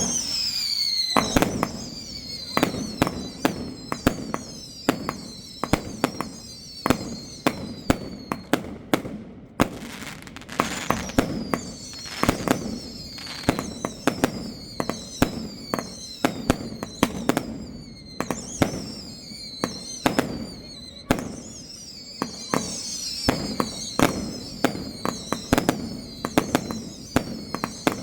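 Svea "Bandit" firework going off: a long run of sharp bangs, one after another, mixed with many high whistles that fall in pitch.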